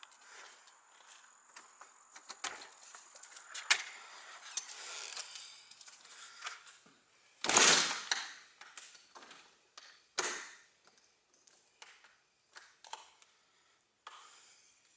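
Footsteps and small handling clicks as a person walks in through a house's back door, with a loud thump about halfway through as the door is shut. A smaller knock follows a couple of seconds later, then quieter steps on carpet.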